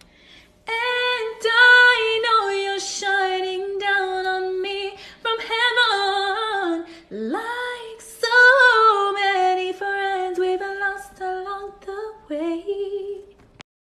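A woman singing solo with no accompaniment, holding notes and bending between them, with one swoop up from low to high about seven seconds in.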